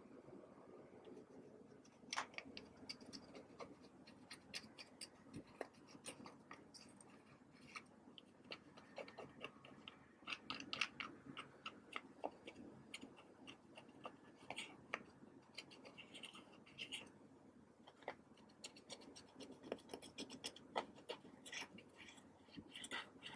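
Pressed eyeshadow being scraped and crumbled out of its palette pans with a plastic spatula: faint, irregular scratching with many small clicks.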